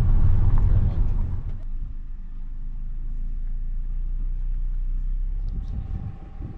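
Motor vehicle running on the road: a loud low rumble for about the first second and a half, then a quieter, steady low drone. A faint steady tone comes in near the end.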